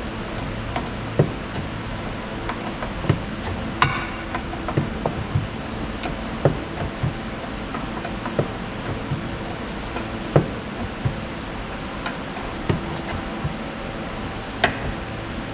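Hand tools working the nut on a car's anti-roll bar link: irregular metal clicks and knocks as the nut is turned while the link's stud is held, with two sharper metallic clinks, about four seconds in and near the end.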